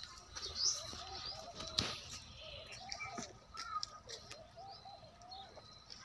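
Birds chirping and calling repeatedly, with many short chirps, and a few sharp clicks.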